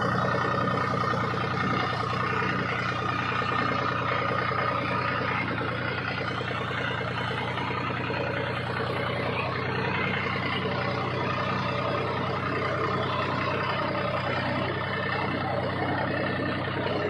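A steady engine running sound, like a diesel tractor's, held at an even speed with no revving.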